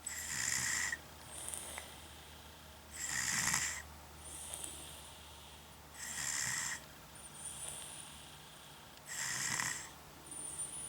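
Snoring in deep sleep: four loud rasping snores about three seconds apart, each followed by a softer breath with a faint high whistle.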